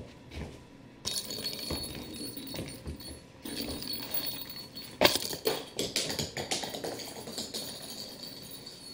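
Metallic jingling and rattling in irregular bursts, starting about a second in, with a sharp, loud clatter about five seconds in.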